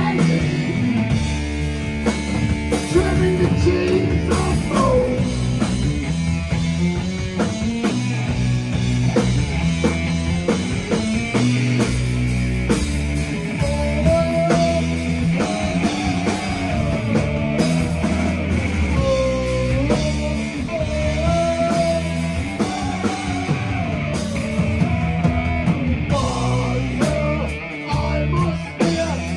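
Live rock band playing loudly: guitar, bass and drum kit, with a lead vocal that comes to the fore about halfway through.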